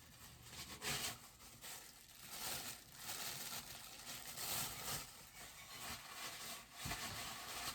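Plastic packaging crinkling and rustling in uneven handfuls as it is handled and pulled off a boxed bobblehead.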